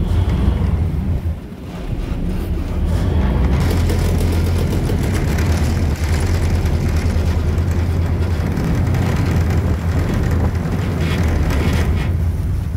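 Car ferry's diesel engine running astern, a loud steady low rumble, with propeller wash churning the water. The rumble dips briefly about a second and a half in, then holds steady.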